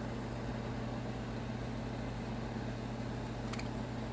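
Steady low mechanical hum in the room, with one brief, faint high budgie chirp about three and a half seconds in.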